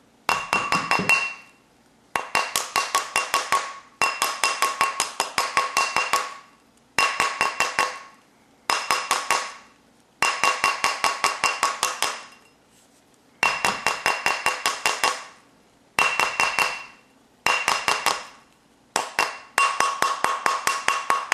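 A mallet rapidly beating a copper wire ring on a steel ring mandrel, about five blows a second, in about ten short runs with brief pauses as the ring is turned. The mandrel rings with each blow. The ring is being stretched a size larger and its shank work-hardened.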